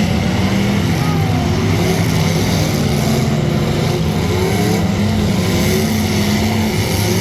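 Demolition derby car engines running loudly and steadily, with small rises and falls in pitch as they are revved.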